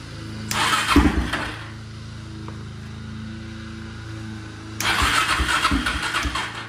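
ATV engine being started in two bursts of cranking and firing, the first about half a second in and a longer one near the end, over a steady low hum. The four-wheeler keeps turning off, which the owner thinks is a carburetor problem.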